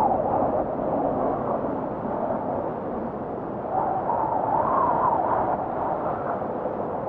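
Blizzard wind blowing in gusts, with a wavering whistling tone that rises and falls in pitch. The strongest gusts come right at the start and again about four to five seconds in.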